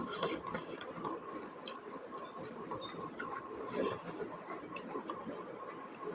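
Close-miked eating sounds: a person chewing and smacking a mouthful of buffalo innards curry, with many small wet mouth clicks.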